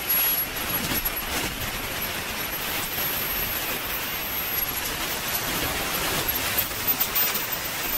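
Kingtech K-210 G4 micro turbine running at high power: a steady jet rush with a thin, high whine that climbs in pitch about five seconds in as the engine spools up toward maximum throttle.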